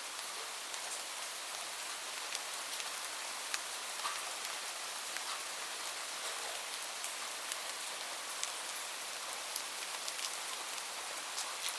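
Steady rain falling, an even hiss with scattered sharper drop impacts.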